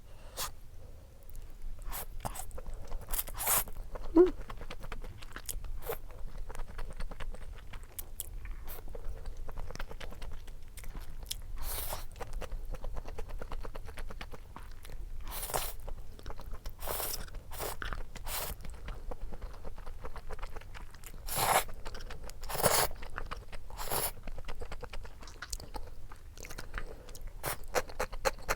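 Close-up eating sounds of buckwheat noodles and dumplings being chewed, with scattered short clicks and louder bites or slurps now and then.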